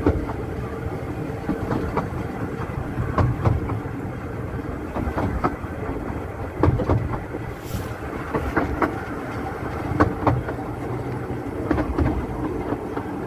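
Carriage of a 15-inch-gauge railway train running along the track, heard from an open window: a steady rumble of wheels on rail with irregular clicks and knocks.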